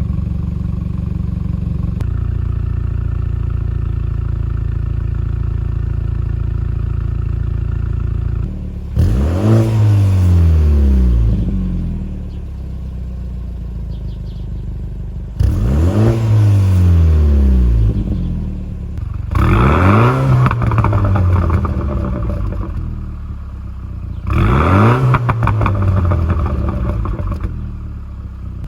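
BMW Z4 with the N20 turbocharged four-cylinder, its resonator replaced by a straight pipe, idling steadily through the exhaust and then revved four times, each rev climbing quickly and dropping back to idle over a couple of seconds.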